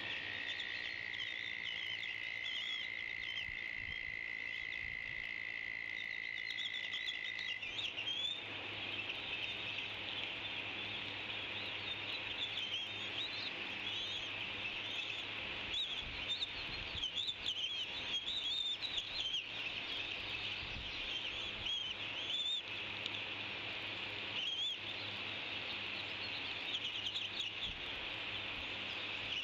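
A dense, continuous chorus of high chirping animal calls, with a steady high whine that stops about seven and a half seconds in.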